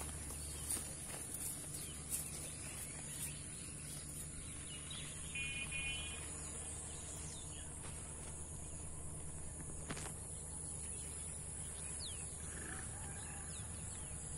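Quiet rural outdoor ambience with a steady faint high hiss, a few soft clicks, and a short bird chirp about five seconds in, with another faint call near the end.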